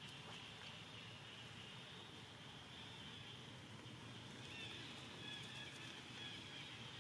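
Faint outdoor ambience: a steady hiss with a high, faint chirp repeating about twice a second, and a few short chirps about two-thirds of the way in.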